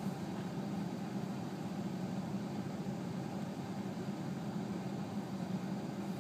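Steady low hum of an idling truck engine, with an even hiss over it and no change throughout.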